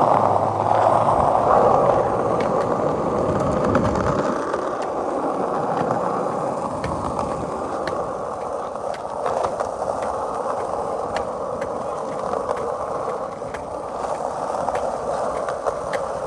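Skateboard rolling on rough pavement: a steady rolling noise from the small hard wheels, broken by sharp clicks as they hit cracks, seeds and debris.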